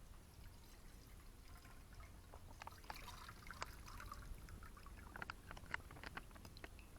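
Faint liquid pouring for a couple of seconds, with scattered light clicks and knocks.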